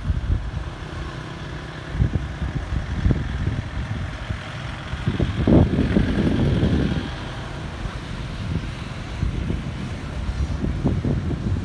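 Road traffic: motorbikes and cars passing on the street below, with one vehicle going by louder about halfway through.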